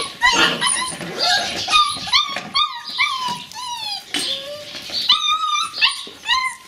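Border collie puppies whining and yipping: many short, high calls that rise and fall, overlapping in quick succession.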